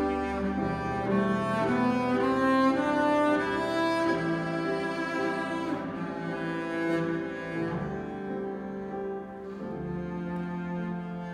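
Double bass played with the bow, with piano accompaniment: a classical duo piece of sustained, singing bass notes over piano chords, the melody climbing in the first few seconds.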